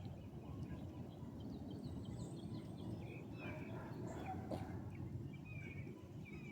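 Small birds chirping on and off, short high calls, over a faint steady low outdoor rumble.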